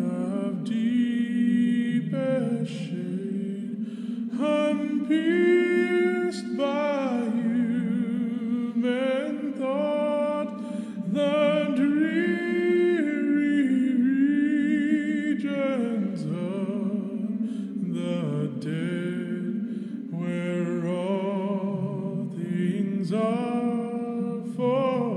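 Unaccompanied voices singing a cappella: long held notes that glide slowly from pitch to pitch over a sustained low note.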